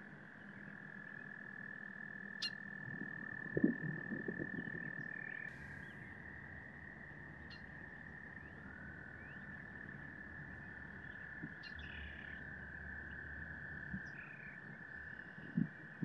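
Frogs calling in a steady, high, unbroken trill, with a second, slightly lower trill overlapping it in the middle. A few low knocks come about three to five seconds in.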